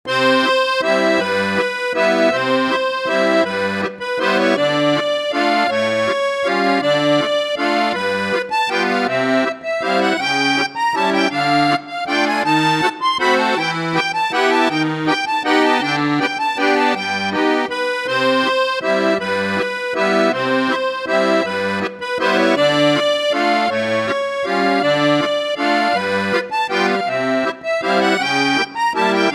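Background instrumental music: a melody line over a steady, bouncing bass-and-chord accompaniment.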